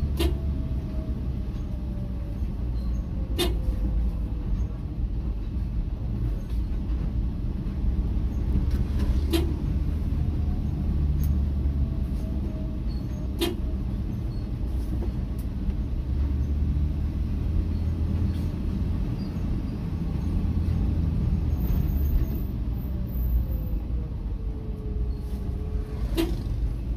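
Steady low rumble of a road vehicle driving along a village road, with a faint whine that slowly falls in pitch and a few sharp knocks.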